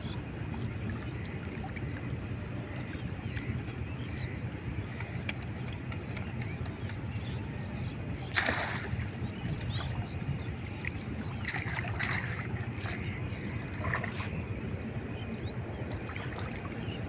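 Water sloshing and splashing in a river, with one sharp, louder splash about eight seconds in and a few smaller splashes later, over a steady low rumble.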